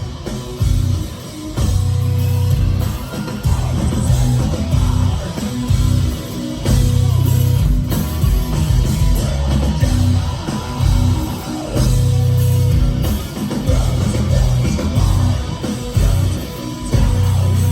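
Heavy metal band playing live, with distorted guitars, bass and drums, heavy in the low end.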